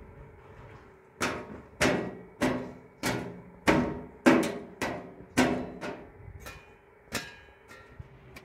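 A run of about ten sharp smacks on a tractor's sheet-metal body, roughly one every half second for six seconds, each ringing briefly.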